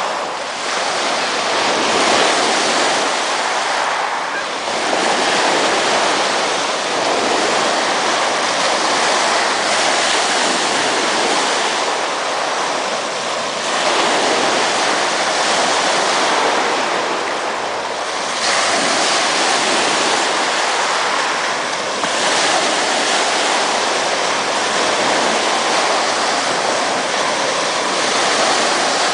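Ocean surf breaking and washing up a beach, rising and falling in swells every few seconds.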